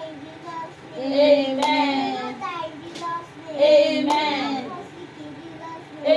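High voices singing along in loud bursts, with a few sharp hand claps.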